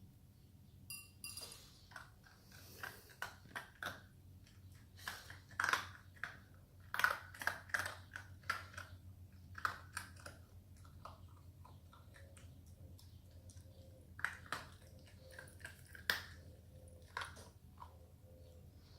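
Standard poodle eating its breakfast: irregular crunching and chewing in short clusters, with a pause of a few seconds about halfway through.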